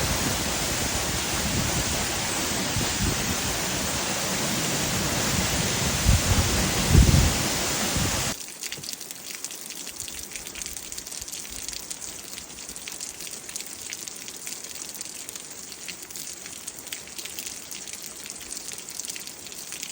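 Outdoor natural noise: a steady rushing sound with a few low thumps for about eight seconds, then a sudden cut to a quieter, fine crackling patter that lasts to the end.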